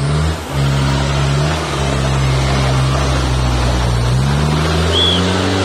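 Modified off-road 4x4's engine revving hard: the revs hold high with a brief dip, then climb again about four seconds in. A short high chirp sounds about five seconds in.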